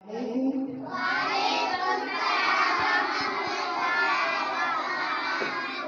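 A roomful of young children singing together in chorus, starting about a second in after a single voice.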